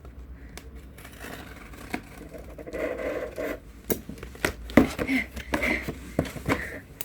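A large cardboard box being handled and pulled out: scraping and rustling of cardboard with several sharp knocks, the loudest a little before the five-second mark, and a few short strained vocal sounds of effort.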